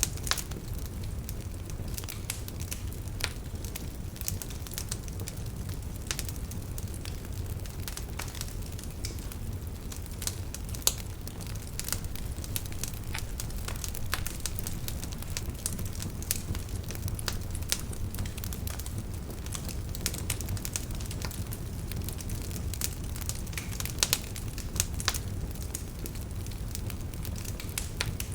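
Wood fire burning in a fireplace: a steady low rumble of flames with irregular sharp crackles and pops throughout, a few louder snaps among them.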